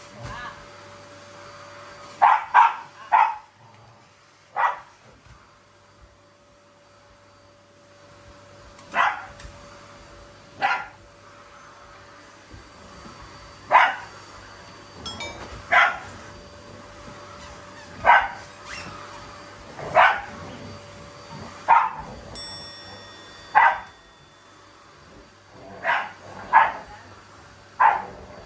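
A dog barking at a vacuum cleaner, about fifteen single barks a second or two apart, some coming two or three in quick succession.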